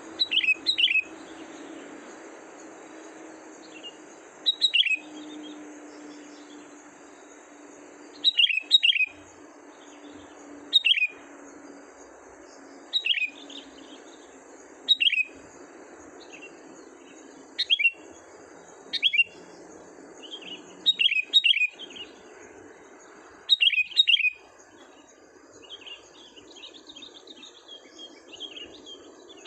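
A decoy bird calling: loud, sharp chirps that sweep down in pitch, singly or in quick pairs and triplets every two to three seconds, turning to softer rapid twittering near the end.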